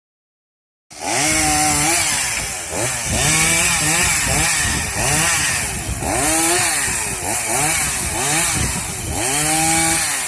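Two-stroke chainsaw cutting, starting abruptly about a second in; its engine note rises and falls over and over, about once a second, as it revs and then bogs down in the wood.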